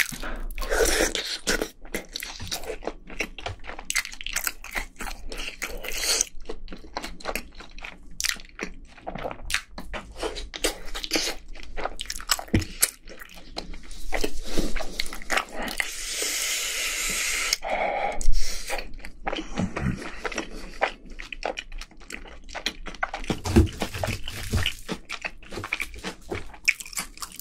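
Close-miked eating sounds: a person chewing and crunching through spicy tteokbokki rice cakes and fried food, with many small wet clicks and bites. About halfway there are a few seconds of denser crunching noise.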